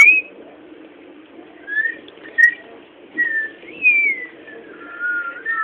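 A person whistling slow, sliding notes, about one a second: short rising and falling slurs, then a long falling glide near the end.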